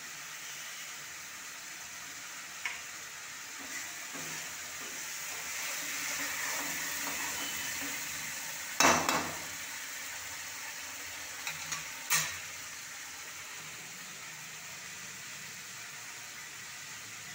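Tomato masala sizzling in oil in a steel kadhai while a ladle stirs it, being fried until the oil separates. A few sharp clinks of the ladle striking the pan, the loudest about nine seconds in and another about twelve seconds in.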